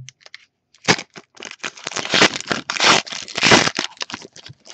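Foil wrapper of a 2013-14 Panini Elite basketball card pack being torn open and crinkled by hand: a quick run of crackles, loudest in the second half.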